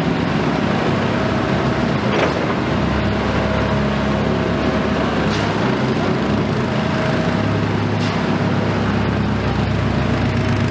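Heavy diesel engine of a Komatsu PC210 excavator running steadily at work, with a steady drone and a higher tone that comes and goes. Faint knocks come about two, five and eight seconds in.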